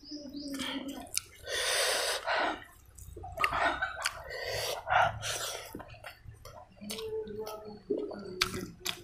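Close-up wet eating sounds of rice and pork curry being eaten by hand: squelching, chewing and lip-smacking, with fingers squishing food on a steel plate. Two longer wet bursts come in the first half, then a scatter of short clicks and smacks.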